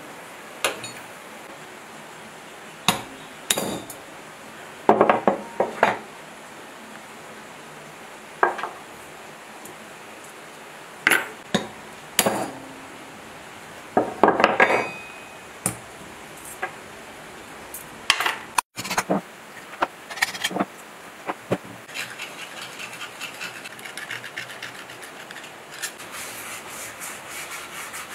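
Sharp metallic knocks and clinks on a cast-iron diesel cylinder head as its valve springs and valves are taken off, coming singly every second or two. About two-thirds of the way in they give way to fast, steady scrubbing of the head's surface by hand.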